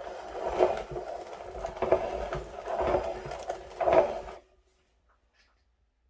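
Electric meat grinder motor running with a steady hum and louder surges about once a second as it works through the food, then switching off suddenly about four seconds in.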